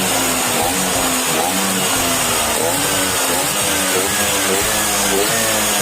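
Tuned two-stroke Vespa scooter engine, bored to 163cc and fully ported, being revved in quick repeated throttle blips, its pitch rising and falling.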